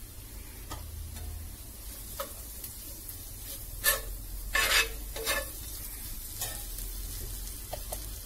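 Onions and spice paste sizzling in oil in a tawa while a steel spoon stirs and scrapes across the pan, with a few louder scraping strokes around the middle.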